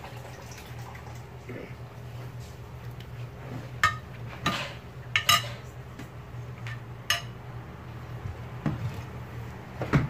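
A metal serving spoon stirring a bowl of thick chickpea curry, with several sharp clinks against the bowl in the second half, over a steady low hum.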